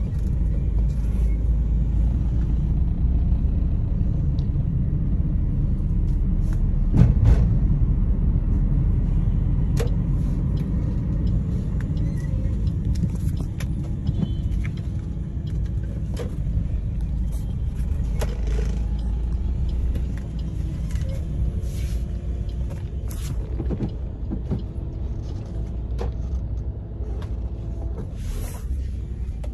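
Low, steady rumble of a car's engine and tyres heard from inside the cabin while driving through street traffic, with scattered small knocks and clicks, the loudest about seven seconds in.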